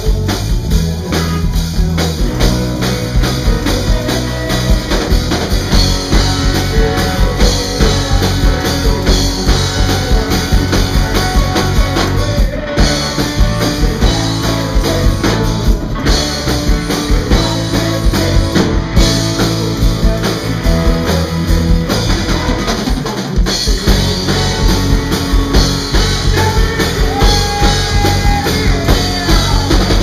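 A rock band playing live: a drum kit keeping a steady beat under electric guitars and bass, loud and dense throughout.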